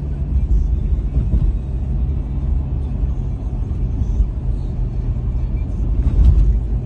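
Car driving over a badly broken, potholed asphalt road: a steady low tyre and road rumble under the engine hum, with a louder low surge about six seconds in.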